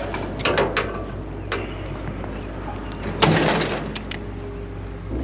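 Vehicle engine idling steadily, with a few short knocks and a louder metallic clatter about three seconds in.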